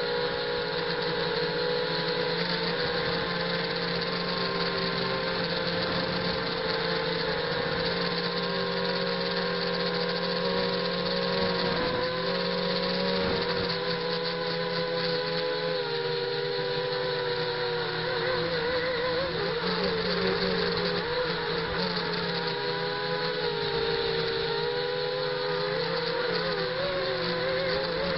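Brushless motors and propellers of a ZMR 250 racing quadcopter whining in flight, heard close up from the onboard camera. A steady whine of several tones whose pitch wavers and shifts with throttle, wobbling most about two-thirds of the way through.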